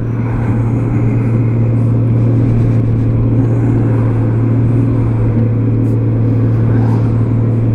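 2003 Honda Gold Wing's flat-six engine running at a steady cruise, heard as a steady low drone mixed with wind and road noise.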